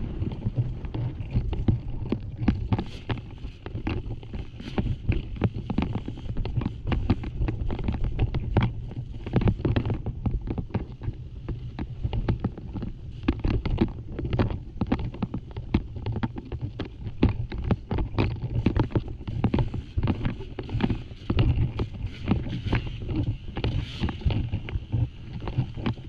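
Dirt bike being ridden over a rough, rocky trail, heard from an onboard camera: a steady low rumble of wind buffeting the microphone, with a constant rattle of quick knocks and clatter from the bike and the rocks.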